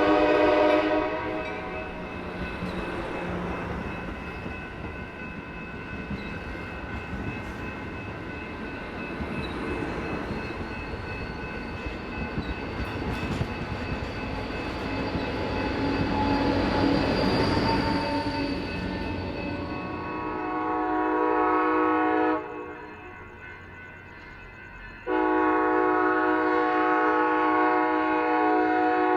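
Passenger locomotive's multi-chime air horn ending a blast, then the rumble and rail noise of the train passing. Near the end come two long horn blasts a few seconds apart, sounded for a grade crossing.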